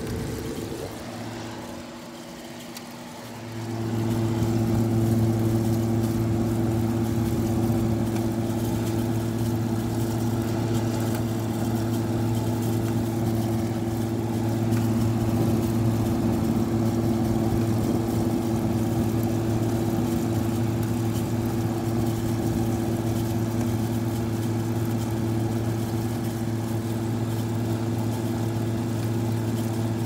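GE window air conditioner running, heard from its outdoor side: a steady hum from the compressor and fan that grows louder about three and a half seconds in and then holds steady.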